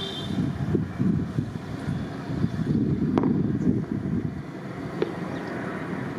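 Low, uneven rumble of a landing Airbus A350's jet engines, mixed with wind buffeting the microphone, with a single sharp click about halfway through.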